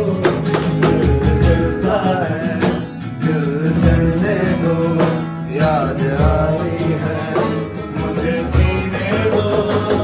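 Male voices singing a soulful song to an acoustic guitar, with a cajon tapping out a steady beat.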